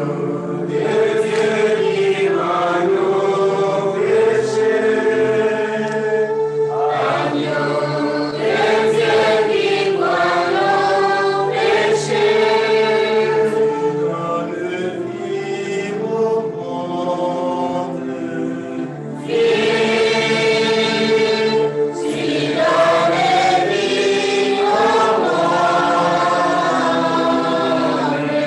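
A choir singing in phrases a few seconds long, over steady held low notes.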